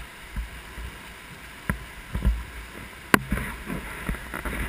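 Mountain stream rushing through a narrow rock gorge as a steady wash of whitewater noise. Several sharp knocks and low thumps cut through it, the loudest about three seconds in.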